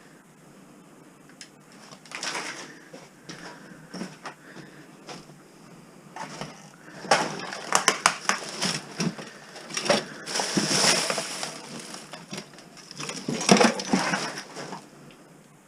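Rummaging through piles of household clutter: objects knocking, clattering and rustling as they are picked up and moved. The handling is sparse at first and grows busy and louder about halfway in.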